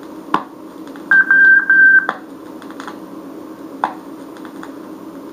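Morse code practice tone played from a 1959 vinyl code-course record: one high-pitched letter group of about a second, dit-dah-dah, the letter W. Steady record surface noise runs underneath, with a click shortly before the tone and another a while after it.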